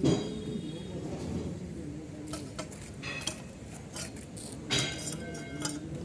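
Steel rod clinking against the steel rollers of a hand-worked rod-straightening machine as it is worked through them: a knock at the start, then several sharp metallic clinks with brief ringing in the second half.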